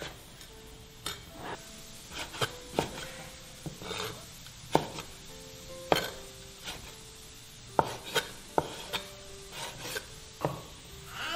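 A kitchen cleaver chopping soaked dried radish strips on a wooden cutting board: unevenly spaced knocks of the blade on the board, about two a second.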